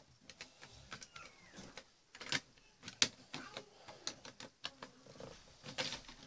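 Plastic Lego bricks clicking and clattering as pieces are handled and pressed into place: an irregular scatter of short sharp clicks, the loudest about three seconds in.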